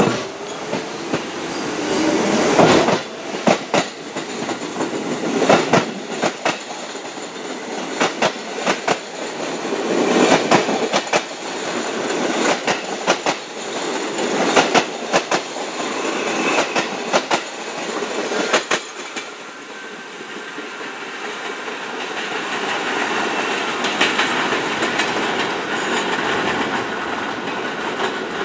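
R68A subway train rolling slowly along the platform, its wheels clacking over rail joints in clusters about every two seconds. In the last third the clacks give way to a smoother, swelling rumble as a second train comes closer over the switches.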